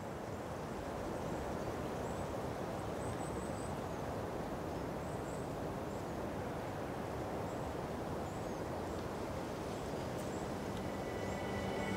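Outdoor country ambience swelling up: a steady rushing noise with faint, scattered high bird chirps. Sustained music notes begin to come in about a second before the end.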